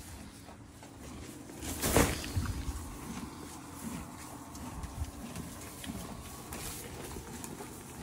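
A horse eating hay close up: irregular crunching and rustling as it chews and pulls at the hay, with a loud breathy blow about two seconds in.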